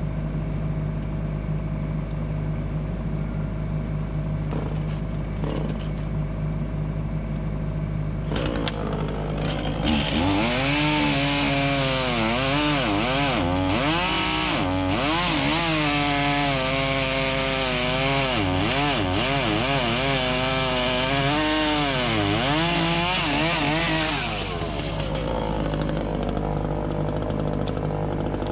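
Two-stroke Echo CS-400 chainsaw revving up about eight seconds in and cutting through a log, its pitch dipping and recovering again and again as the chain bogs down in the wood, until the cut ends a few seconds before the close. Underneath, a diesel engine idles steadily throughout.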